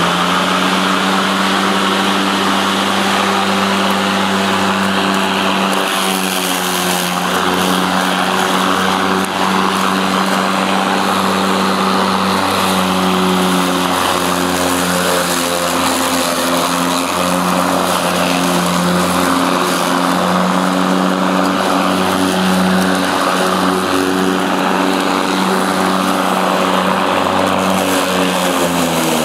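Earthwise 60120 24-volt cordless electric lawn mower running, its motor and spinning blade giving a steady hum with a hiss over it. The pitch dips briefly near the end.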